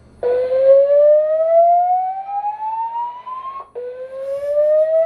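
Building fire alarm sounding its whooping evacuation tone: a loud tone sweeping steadily upward for about three and a half seconds, then breaking off and starting the same rise again.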